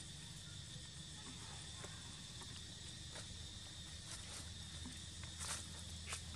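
Steady high insect drone with a low hum beneath, and scattered light clicks and rustles in dry leaf litter, the strongest a couple near the end.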